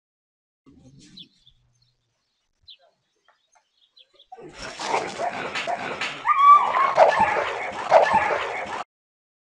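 A pit bull and another dog fighting: a loud, noisy scuffle of dog sounds starts about four seconds in, with a sharp high cry a little past the middle, and cuts off abruptly near the end.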